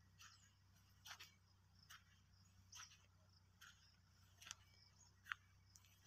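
Faint footsteps on dry soil and crop litter, a short scratchy step about every second over near silence.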